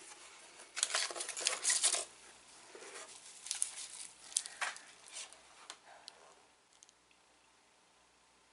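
Snack packet wrapper crinkling and rustling as it is handled: a dense stretch of rustling about a second in, then scattered crinkles that fade out.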